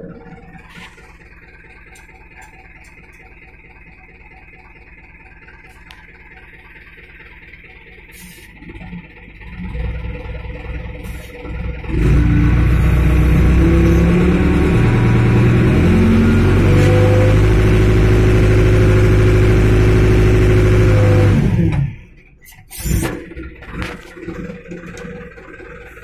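Mobile hydraulic crane's engine idling low, then revved up hard for about ten seconds with its pitch stepping up and down as it drives the hydraulics to hoist a load. It drops back abruptly near the end, followed by some clatter.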